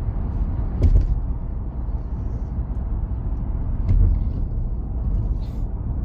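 Road and engine noise inside a moving car's cabin at motorway speed: a steady low rumble, with two short knocks, one about a second in and one near four seconds.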